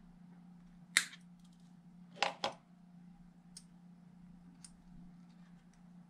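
Side cutters snip sharply once at a coaxial cable plug, then give two quick clacks as they are set down on the wooden table, with a few faint ticks of metal parts being handled afterwards. A steady low hum runs underneath.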